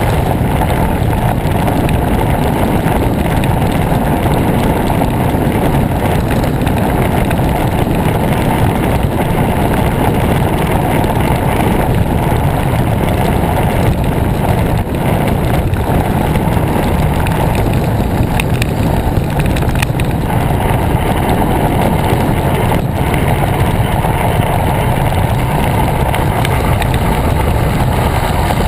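Steady wind noise buffeting the microphone of a camera mounted on a moving road bicycle, a loud, even rush with no engine note, with a few faint clicks.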